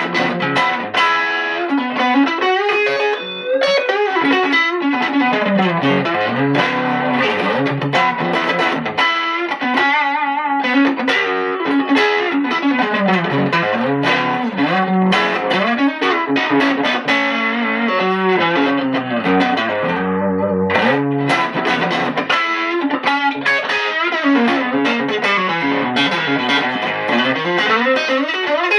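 WestCreek TT-20 Telecaster-style electric guitar played on its neck pickup through a small amp with the gain turned up: a continuous run of distorted lead lines and chords, with bent and sliding notes.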